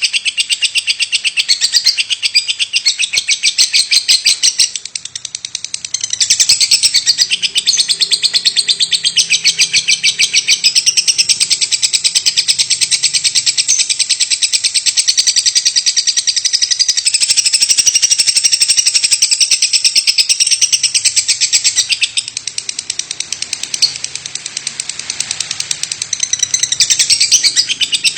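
Lovebird singing a long, unbroken run of rapid chattering chirps, many per second. It drops in loudness briefly about five seconds in and again for a few seconds near the end.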